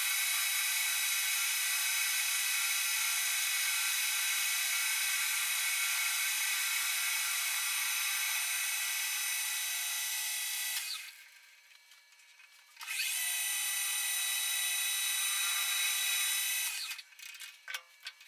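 Metal lathe spindle running with a steady high whine while a center drill cuts into the end of a 2-inch 4140 steel bar. The whine fades out about 11 seconds in, starts again about two seconds later, and stops near the end, followed by a few light clicks.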